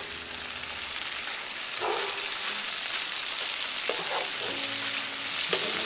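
Sliced cabbage, pork and vegetables sizzling in an oiled electric skillet, stirred with a wooden spatula; the steady hiss grows a little louder about a second and a half in, with a few brief spatula strokes.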